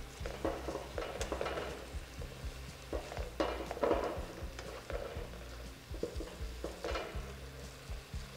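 Bacon-and-onion jam with brown sugar and balsamic vinegar sizzling in a frying pan while a slotted spatula stirs and scrapes through it in irregular strokes, simmering the last couple of minutes with the bacon added back.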